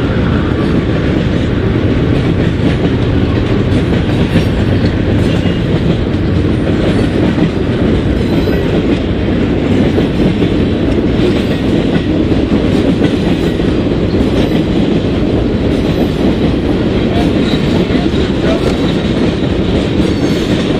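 Union Pacific freight train of boxcars rolling past at close range: a steady, loud noise of steel wheels running on the rails.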